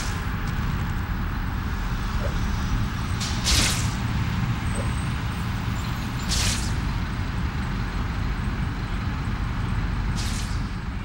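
Steady rumble of city street traffic heard from high above the street, with three short hisses a few seconds in, about halfway through and near the end.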